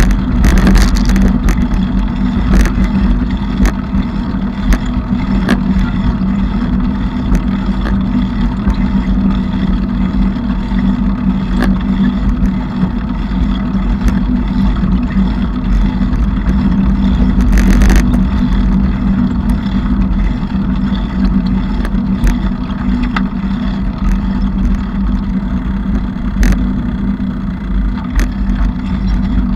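Bicycle riding noise: a steady, loud rumbling hum with occasional sharp rattles and clicks.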